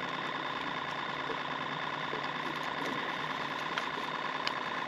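Boat motor running steadily with an even hum, with a few faint clicks over it.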